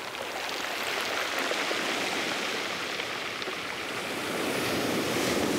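Ocean surf washing onto the shore: a steady rushing of waves that swells louder towards the end.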